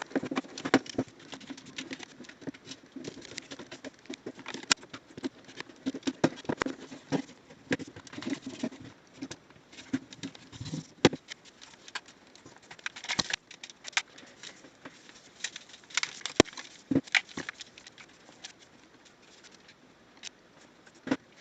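A disinfectant wipe rubbing over the plastic shell of a PlayStation 2 controller, with many irregular small clicks and taps of the plastic being handled. The rubbing is thicker in the first half, and after that the clicks come more sparsely.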